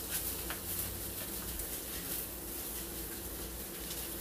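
Gloved hands rubbing texturizer cream through short hair, a faint rustling with a few light clicks near the start, over a steady low background hum.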